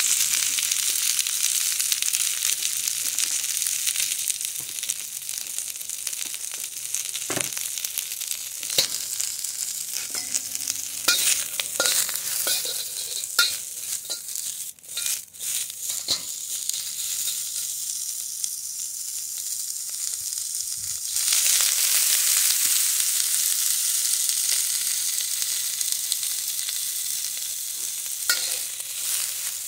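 Broccoli sizzling in a hot wok, stirred with a metal spatula that scrapes and knocks against the pan now and then. The sizzle eases off gradually, then suddenly grows louder about two-thirds of the way through.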